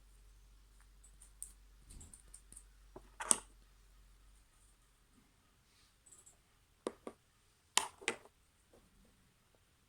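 Slime being mixed and squished, making scattered clicks and pops: one loud one about three seconds in, then two pairs near the seven- and eight-second marks.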